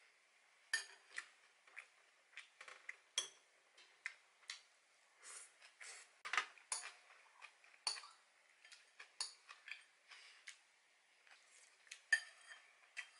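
Metal spoon and chopsticks clinking and scraping against a ceramic bowl while rice is scooped and eaten: irregular short clicks, with a louder ringing clink near the end.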